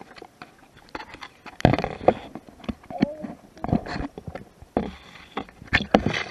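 Irregular muffled knocks and sloshing of an action camera being moved about underwater.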